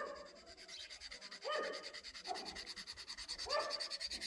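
Victorinox knife blade drawn by hand along a pocket knife sharpener in separate scraping strokes, about one a second, sharpening freehand to raise a burr on the edge.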